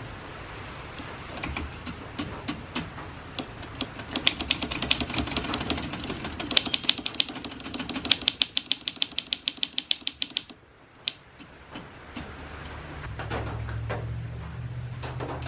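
1950s Olympia Deluxe manual typewriter being worked after lubrication: scattered clacks, then a run of rapid, even clacks lasting several seconds that stops abruptly. A low hum comes in near the end.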